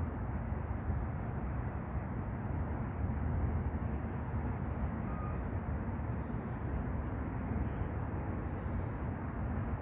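Steady low rumbling background noise with no distinct events in it.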